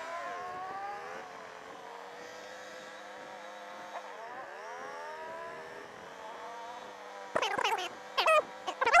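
Ducati Monster 695's air-cooled L-twin engine at low speed, its revs rising and falling twice and then running steadily. Near the end a dog yelps and whines loudly several times.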